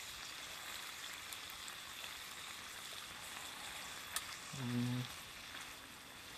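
Seasoned bulgogi beef sizzling steadily on an electric hot plate as chopsticks stir it, the plate back up to frying heat. A single click comes about four seconds in, and a brief low hum just after it.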